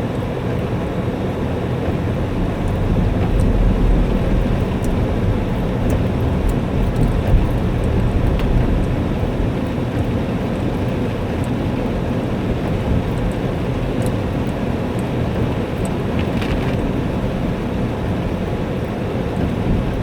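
Heavy rain pouring steadily, with a low rumble and a few scattered faint ticks.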